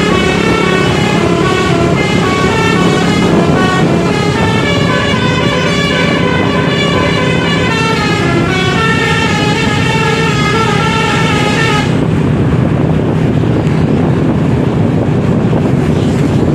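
Bus telolet horn, a multi-tone musical air horn, playing a quick run of changing notes for about twelve seconds, then cutting off suddenly. Steady engine and road noise continue under it and after it.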